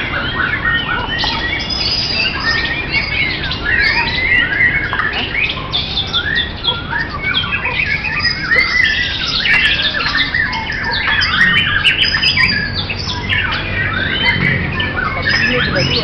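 Caged white-rumped shamas singing over one another: a dense, unbroken tangle of fast whistles, chirps and trills from several birds at once.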